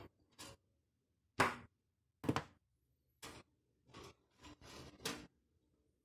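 Short, irregular taps and scrapes of a hand tool and small circuit boards against a toaster oven's metal wire rack, about seven in a few seconds.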